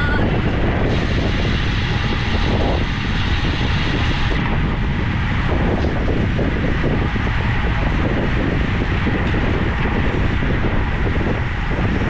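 Steady wind buffeting the microphone of a camera riding with a group of road bicycles at speed, a constant low rumble of moving air.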